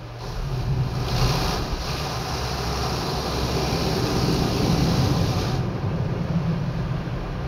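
Automatic car wash spraying water over the car, heard from inside the cabin: a steady rush of spray over a low hum. The spray cuts off about five and a half seconds in while the hum carries on.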